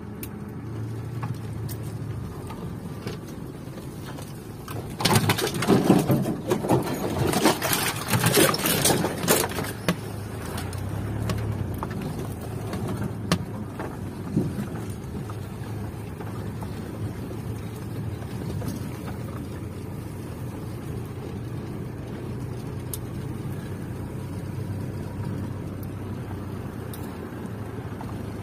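Land Rover Defender engine running steadily, heard from inside the cabin while driving off-road. About five seconds in come several seconds of louder, rougher knocking and rattling noise.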